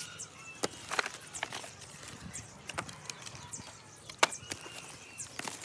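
Sharp plastic clicks and cracks of a broken smartphone being handled and pried apart by hand, its screen and frame knocking together. There are several separate clicks, and the loudest crack comes about four seconds in.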